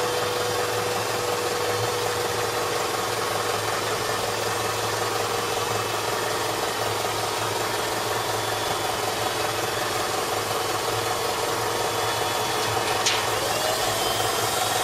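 Electric hydraulic pump salvaged from an old forklift, running steadily under load and driving the hook-lift rams as they tip a loaded roll-off bin up. Heard as an even mechanical hum.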